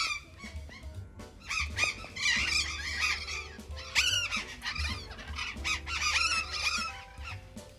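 Burrowing parrots screeching loudly and repeatedly, with many harsh calls overlapping, over a steady musical backing.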